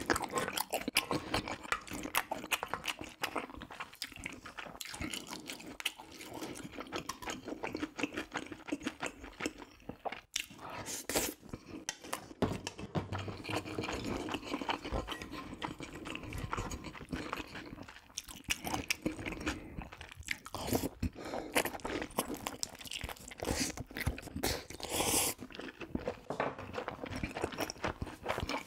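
A person chewing and biting food close to the microphone: continual wet smacks and clicks of eating spicy braised pork ribs (galbi-jjim) with rice cakes and mushrooms, with a few sharper, louder clicks now and then.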